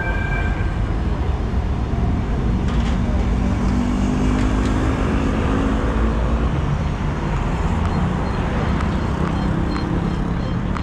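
Road traffic on a city street: a steady low rumble of passing vehicles, with one vehicle's engine hum coming up and fading away around the middle.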